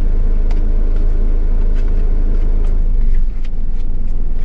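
Truck engine idling: a steady low rumble whose higher tones drop away about three seconds in, with a few small clicks over it.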